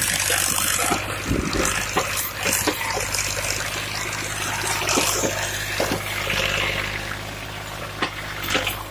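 Fiat 480 tractor's three-cylinder diesel engine running steadily under load while pulling a nine-tine cultivator through dry soil, with a rough hiss and many scattered clicks over the engine drone.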